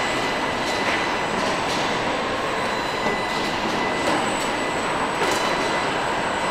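Factory-floor machinery noise: a steady rushing din with a thin high whine running through it and a few sharp clanks scattered across it.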